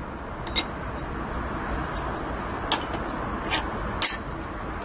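Metal rings clinking as they are handled over a lathe bed: four light metallic clinks that ring briefly, the loudest about four seconds in, over a steady hiss.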